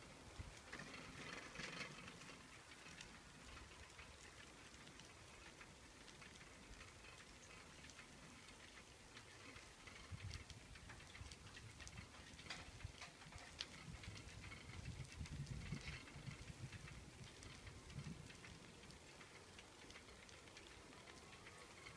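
Near silence: faint background hiss with scattered small crackles, and low rumbling about ten seconds in and again a few seconds later.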